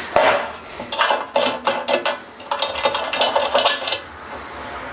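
Steel parts clinking and clattering as they are handled and set into a welding fixture: a quick run of sharp metal knocks, some ringing brightly, that stops about four seconds in.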